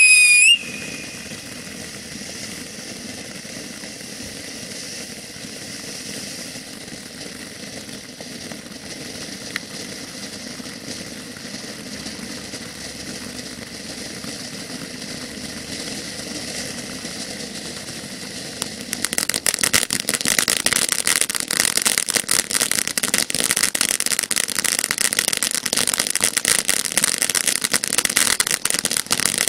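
Jake's Fireworks 'Frosty Mug of Beer' firework fountain spraying sparks with a steady hiss. A falling whistle ends about half a second in. About two-thirds of the way through the fountain switches to loud, dense crackling.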